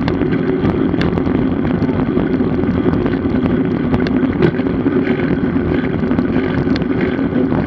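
Steady rush of wind and road noise from a road bike ridden at speed, with a few faint ticks.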